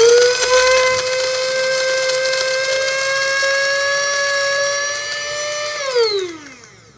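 Small 200 W electric mini spice grinder motor running with green chillies in its stainless steel cup: a loud, steady high whine while the push button is held, which glides down in pitch near the end as the button is released and the motor winds down.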